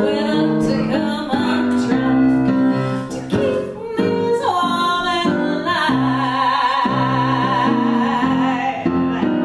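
A woman singing live into a hand microphone with piano accompaniment, the piano striking chords under her voice. About six seconds in she holds one long note with vibrato until near the end.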